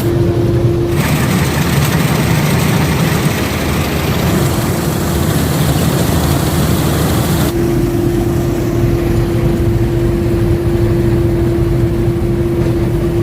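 Rice combine harvester at work, gathering a lodged rice crop, its engine and machinery a steady loud drone. A steady hum rides on top, dropping out about a second in and coming back a little past halfway.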